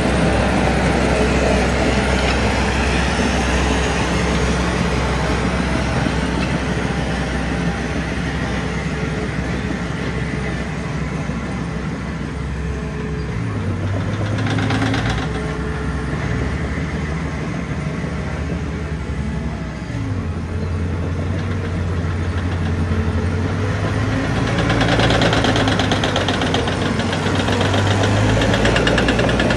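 Diesel engine of heavy earth-moving equipment running under varying load. Its note steps up about halfway, drops again a few seconds later, and turns louder and harsher for a few seconds near the middle and again near the end.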